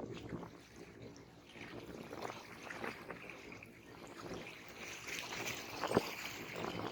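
Small sea waves lapping and splashing against the shore, with a sharper slap of water about six seconds in.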